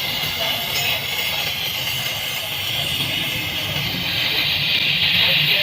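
Welding arc on an aluminium cylinder head: a steady hiss with a low buzz underneath, growing a little louder near the end.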